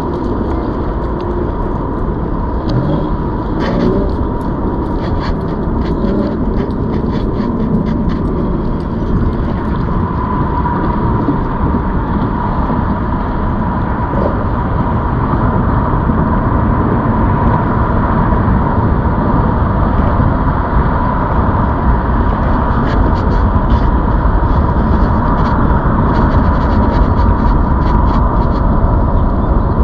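Steady rush of wind and rolling rumble from a ZOOZ electric bike ridden along at speed, with a thin steady whine throughout and light ticking now and then.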